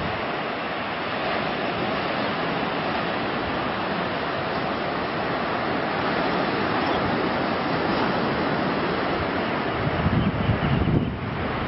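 Steady wash of surf breaking on a beach, mixed with wind, with wind gusting on the microphone near the end.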